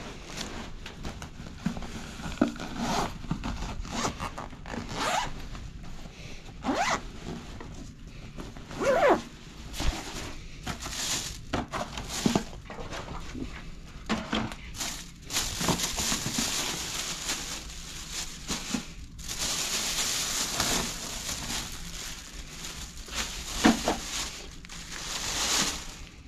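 Zipper of an insulated delivery bag being pulled open, with handling and plastic grocery bags rustling as items are lifted out and set down. A longer stretch of steady rustling runs through the second half.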